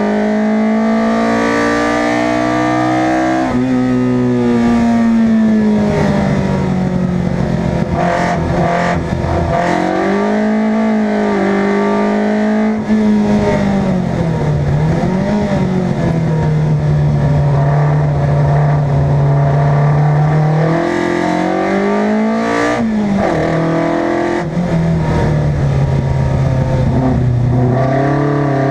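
Race car engine driven hard, its pitch climbing under acceleration and dropping at each gear change or lift, with a few seconds of steady pitch about two-thirds of the way through; road and tyre noise runs underneath.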